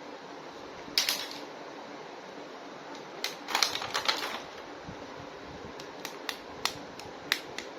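Sharp plastic clicks and light rattles of an action figure being handled: a short rustle about a second in, a quick cluster of clicks around three to four seconds, then a run of single separate clicks near the end.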